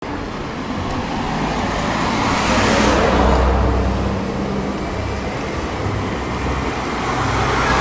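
Street traffic: motor vehicles running and passing close by, with one pass loudest about three seconds in and another swelling near the end over a steady low engine hum.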